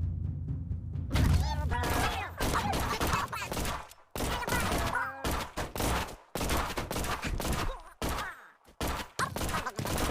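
Slime being squeezed and squished, making a dense, rapid run of crackling pops with a few short squeaks, in clusters broken by brief pauses.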